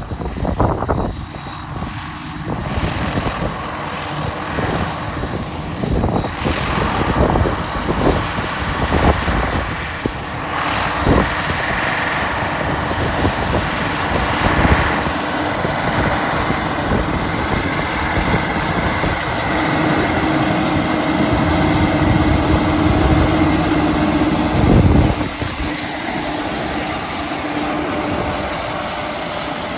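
Harvest machinery engine running steadily under wind buffeting on the microphone. A steady drone and a higher whine settle in from about twelve seconds.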